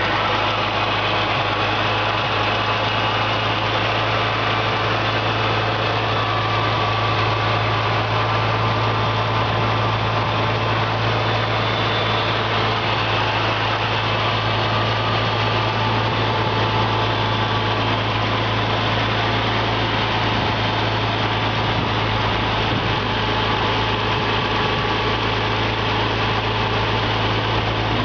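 International Harvester 460 gas tractor's six-cylinder gasoline engine idling steadily.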